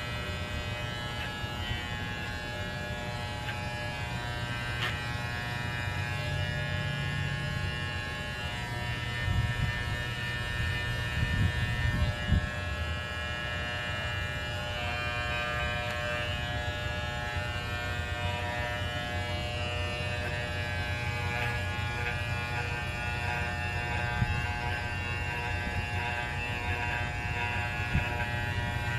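Electric pet clippers running steadily as a small dog is shaved, a constant motor buzz with a few knocks and bumps about ten seconds in.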